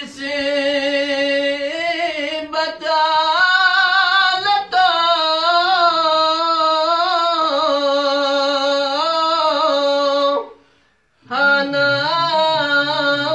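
A man singing a Balti qasida unaccompanied, drawing out long, ornamented high notes. He breaks off for a breath about ten seconds in, then picks the line up again.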